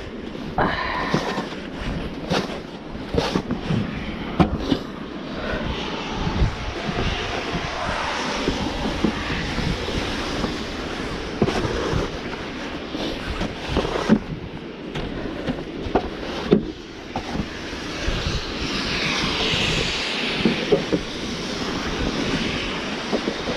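Snow shovel scraping and knocking on snow and decking, repeated short scrapes and knocks over a steady rushing noise.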